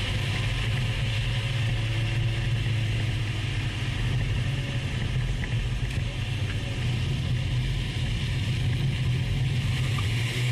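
Mazda MX-5 NC's four-cylinder engine heard through its quiet stock exhaust while driving, a steady low drone whose pitch drifts only slightly.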